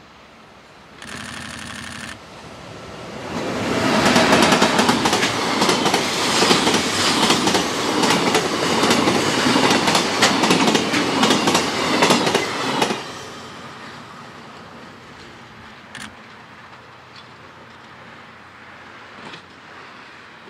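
Container freight train hauled by an EH500 electric locomotive passing close at speed. A short steady tone sounds about a second in, then a loud rumble with rapid clickety-clack of wagon wheels over the rail joints lasts about ten seconds. It fades away as the last wagons go by.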